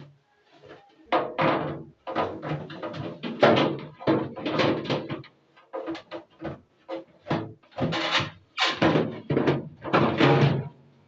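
Plastic refrigerator bins being pushed back into the fridge: a dense run of scrapes, rattles and knocks as they slide and seat in place.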